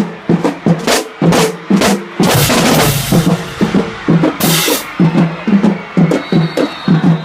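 High school marching band drumline playing a march-in cadence: a steady beat of bass and snare drums at about three hits a second, with a long cymbal-like crash about two seconds in and a shorter one about four and a half seconds in.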